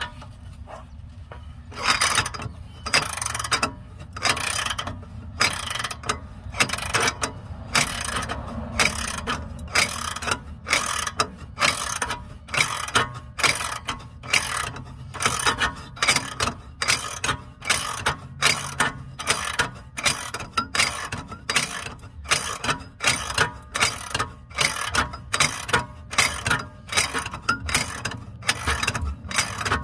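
Socket ratchet clicking in short, even strokes, about one and a half a second, as it turns the nut on a homemade all-thread bushing press that is pushing a suspension bushing out. The clicking starts about two seconds in.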